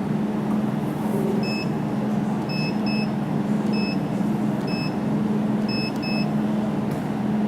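Jewelry laser welding machine firing pulse after pulse, each marked by a short high beep: seven beeps at uneven spacing over the machine's steady hum.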